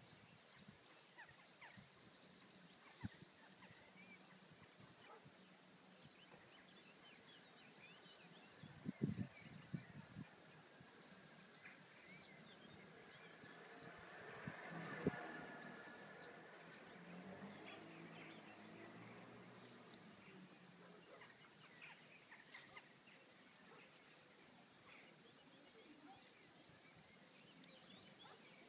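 Swifts screaming as they fly overhead: many short, high, shrill calls in scattered runs throughout. A faint engine hum swells and fades about halfway through.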